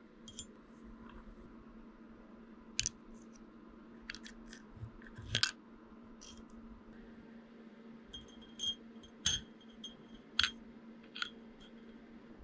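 Small metal parts tapping and clinking in the air-inlet bore of an Ingersoll Rand 2190Ti impact wrench handle as the inlet valve and its spring are fitted with tweezers. The sharp clicks come irregularly, several with a short metallic ring, over a faint steady hum.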